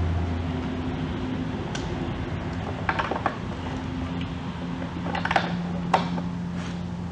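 Plastic bulb socket and wiring plug being handled and pushed into a headlight housing: a few sharp plastic clicks and taps, about three seconds in and again near the end. A steady low hum runs underneath.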